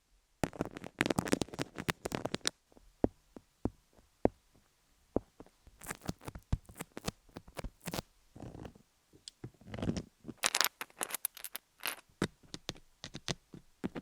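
Close-miked ASMR triggers on a rhinestone-covered dummy-head microphone. Bursts of scratching and rubbing alternate with sharp, quick taps and clicks.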